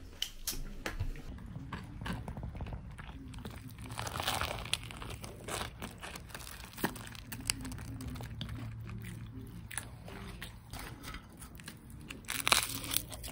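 A person eating a chip butty close to the microphone: bites and chewing with crunchy clicks scattered throughout, a little denser about four seconds in and near the end.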